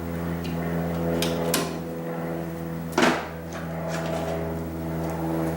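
Hardware being handled while a wall receptacle is mounted: a few sharp clicks and a louder knock about three seconds in, over a steady hum.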